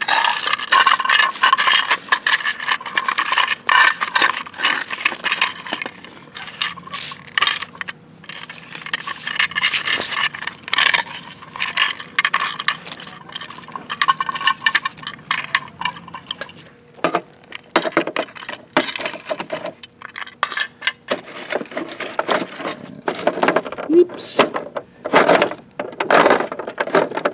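Hands gathering paper scraps off a concrete sidewalk and dropping them into small plastic toy garbage cans and a toy garbage truck's hopper: a run of light scrapes, rustles and plastic clicks and clatters.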